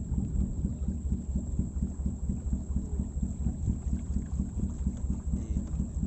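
Low, steady, fluttering rumble of a boat's motor mixed with wind buffeting the microphone, heard from aboard the moving boat.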